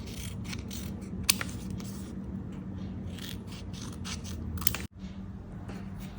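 Paper and craft supplies being handled on a journal page: a run of short rustles and scrapes, with a sharp click about a second in and another near the end, over a steady low hum. The sound cuts out for an instant about five seconds in.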